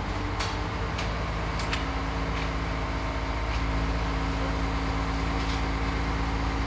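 Mobile crane's engine running steadily with a low, even hum while it holds a suspended load, with a few sharp clicks in the first two seconds.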